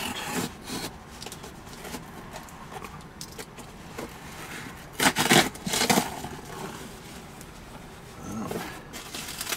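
A cardboard shipping box being opened by hand: packing tape slit and torn, cardboard scraping and rustling, with two loud tearing bursts about five to six seconds in as the flaps are pulled open.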